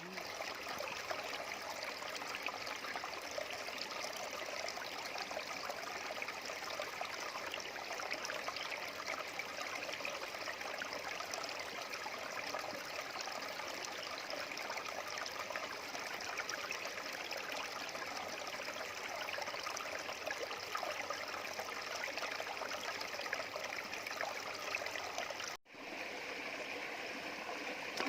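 Stream water running steadily, a continuous trickling rush, with a momentary dropout a few seconds before the end.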